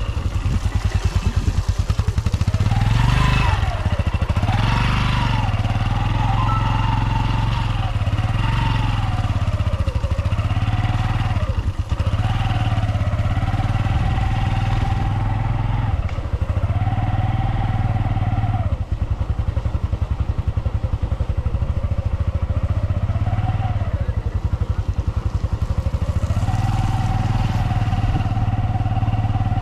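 Motorcycle engine running while the bike is ridden along a rough dirt forest track. The engine note rises and falls again and again as the throttle is opened and eased, with brief drops about 12 and 19 seconds in.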